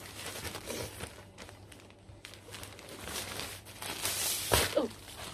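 Clear plastic packaging bag crinkling and rustling as a folded blanket inside it is handled and pulled out, loudest about four seconds in. A short vocal 'mm' is heard twice.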